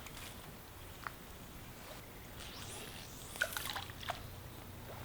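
River water sloshing and trickling around a small pontoon boat drifting on a shallow river, with a few light splashes about three to four seconds in.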